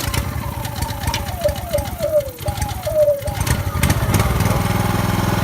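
Honda EB2800i inverter generator's engine starting up. It runs unevenly at first, with a series of short falling whines, then settles into a steady run about four seconds in.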